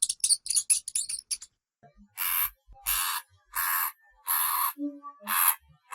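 Hamster sounds: a quick run of sharp, high squeaks and clicks over the first second and a half, then six short scratchy rustles at an even pace, about one every 0.7 seconds.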